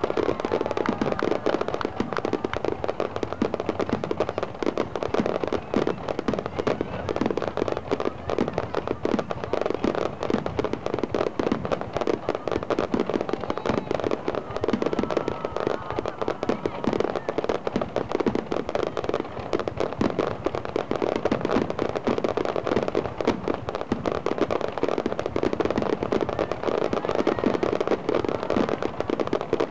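Fireworks display: a dense, continuous barrage of rapid bangs and crackling, with no pause.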